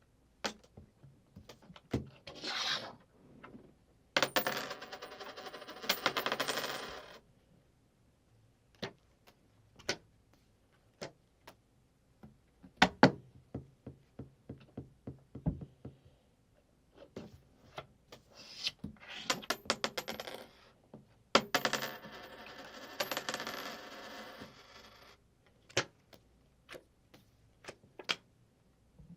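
Coins clinking and rattling on a table as playing cards and coins are moved about: scattered sharp clicks, with two longer spells of rapid rattling with a ringing edge, about four seconds in and again about twenty-one seconds in.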